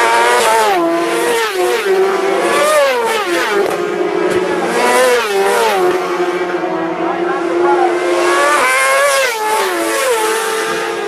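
Several racing motorcycles pass one after another at speed. Each engine note climbs and then drops sharply as the riders rev through the gears and roll off.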